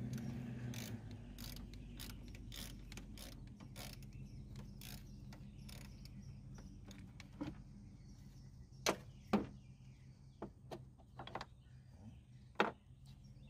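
Hand ratchet wrench clicking in short strokes, with a few louder metal clinks, as a car battery terminal clamp is tightened.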